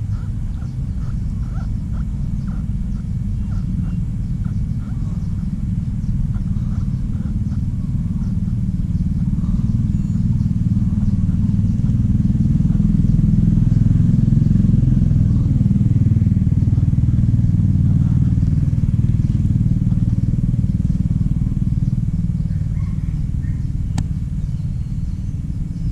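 A low engine rumble that grows louder toward the middle and fades again near the end.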